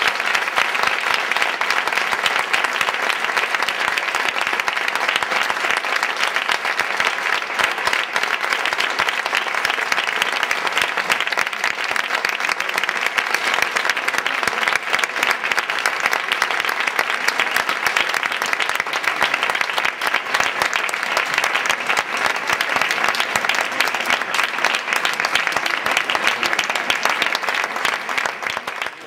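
Audience applauding steadily, a long round of clapping that fades out near the end.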